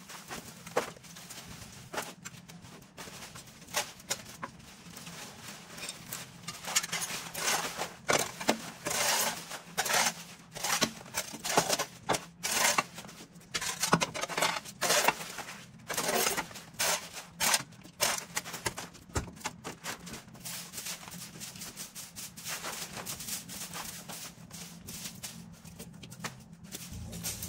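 An irregular run of scraping, swishing strokes from hand tools working debris, coming fast and close together in the middle stretch, over a faint steady low hum.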